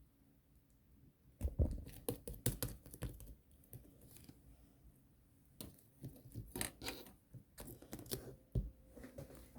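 Slime being squeezed and worked by hand, making rapid small clicking pops. The pops come in two bursts, one from about a second and a half in and another from the middle until near the end.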